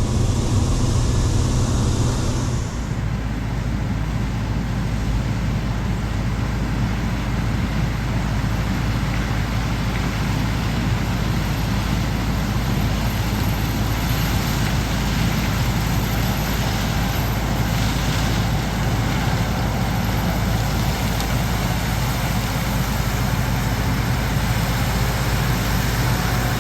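Heavy farm machinery's diesel engine running steadily, with an abrupt change to a different steady engine drone about three seconds in.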